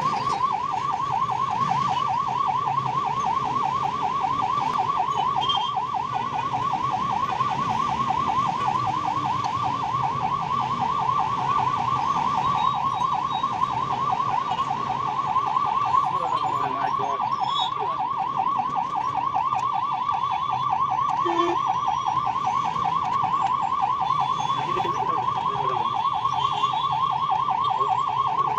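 Ambulance electronic siren sounding a fast, unbroken warble, heard from inside the cab. A low engine hum and surrounding traffic noise lie underneath.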